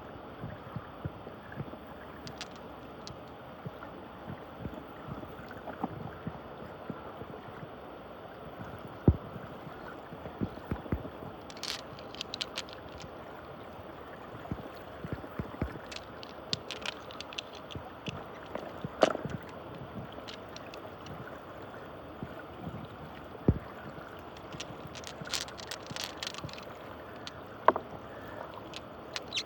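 Water swirling and gurgling in a small muddy whirlpool, a steady rushing with short sharp clicks and splashes scattered through it.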